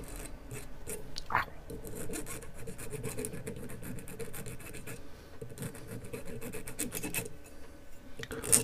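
Flat hand file rasping back and forth on an aluminium capacitor can in repeated short strokes, scraping off its plastic coating to bare the metal for soldering.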